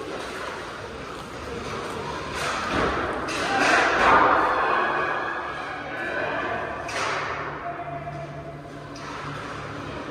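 Hockey play in a large echoing hall: sharp knocks of sticks and puck, thuds, and players' voices calling out, loudest around four seconds in.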